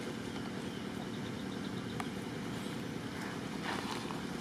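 Steady low rumble of distant engine noise, with a brief rustle and crackle of dry leaves near the end as a baby macaque scrambles over the ground.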